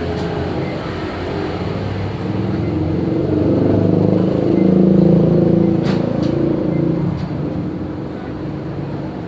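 A motor vehicle engine running, growing louder over a few seconds and then fading, with a few sharp clicks about six seconds in.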